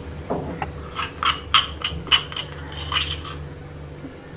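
A plastic spoon scraping and knocking in a stone mortar, a quick run of short clicks, as crushed cumin, pepper and garlic paste is scooped out. A low steady hum runs underneath.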